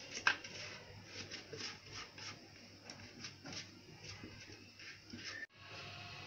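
Quiet kitchen room tone with faint, scattered light clicks, changing to a faint steady hum after a sudden break about five and a half seconds in.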